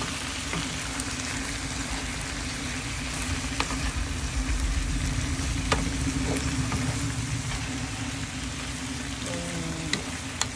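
Napa cabbage, chicken and potatoes sizzling in a nonstick frying pan while a wooden spatula stirs them. A few sharp clicks of the spatula against the pan come over a steady hiss and a low hum.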